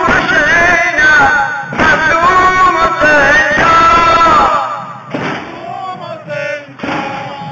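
A man chanting a Shia mourning lament (noha) loudly, with sudden struck beats keeping time; the chanting drops to a quieter level after about four and a half seconds.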